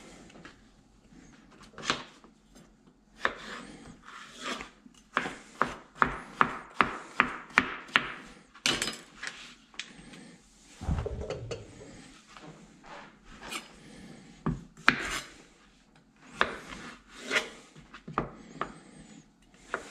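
Food prep on a plastic cutting board: irregular sharp knocks and taps of a knife and cubed yellow squash on the board, with a quick run of them about five to eight seconds in.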